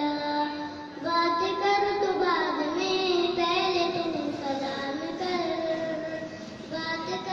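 A boy singing a naat solo into a handheld microphone: long held notes that glide and waver, with a short pause for breath about a second in.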